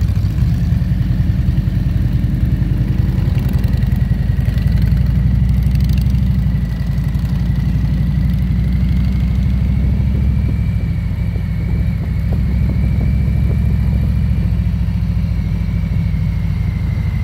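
Motorcycle engine heard from the rider's seat, a steady low rumble as the bike idles and rides slowly through town traffic.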